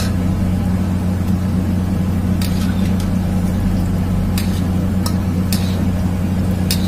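Momos deep-frying in a wok of hot oil, sizzling, with a metal spatula clinking and scraping against the wok several times. Under it runs a loud, steady low hum.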